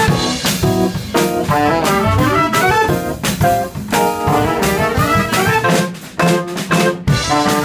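Live jazz from a small combo: trumpet and saxophone playing melody lines together over a drum kit with busy cymbal and drum strokes.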